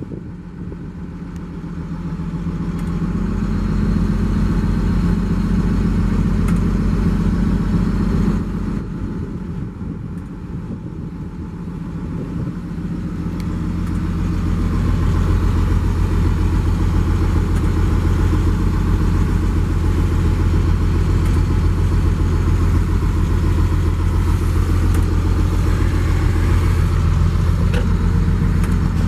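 Daewoo DH130 excavator's diesel engine running. Its note rises over the first few seconds, drops suddenly about eight seconds in, then builds again and holds steady and loud.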